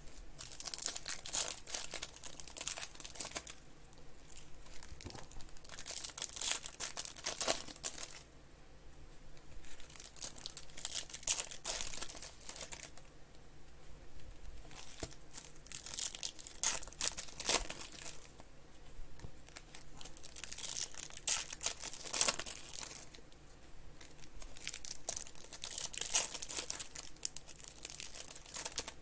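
Foil trading-card pack wrappers being torn open and crinkled by hand, in repeated crackling bursts a few seconds apart.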